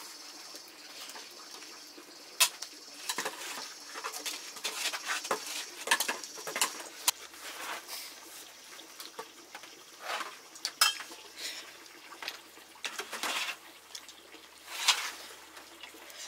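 Metal cooking pots, plates and spoons clinking, knocking and scraping in irregular clatter, with a few louder clanks spread through it.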